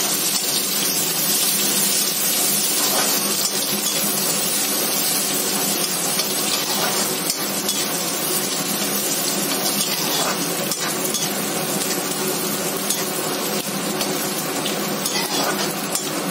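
Chopped onions sizzling steadily in hot oil in a kadhai, stirred with a spatula that scrapes against the pan a few times.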